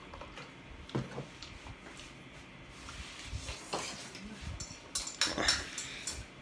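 Eating utensils clinking and scraping against a dish in a few separate strikes, with a quick cluster of clinks near the end.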